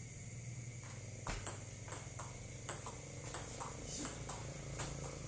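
Table tennis rally: the celluloid ball clicks sharply off paddles and the table, the clicks coming in quick pairs about every two-thirds of a second from about a second in.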